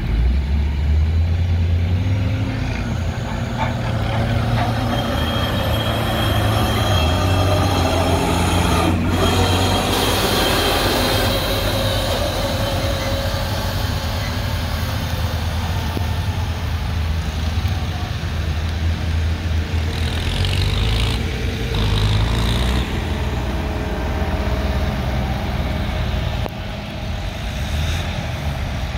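Tractor engine running hard under load while dragging a weight-transfer pulling sled down a dirt track. It is a steady deep drone, with a higher whine over it for several seconds partway through.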